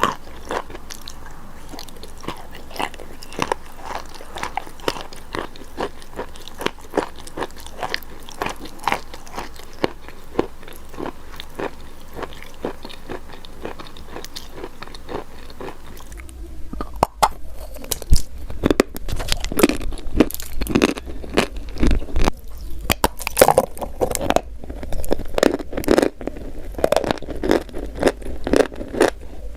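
Close-miked chewing and crunching of a burger, with short crisp crunches about twice a second. From about halfway the crunching grows louder and denser, as with a fresh bite.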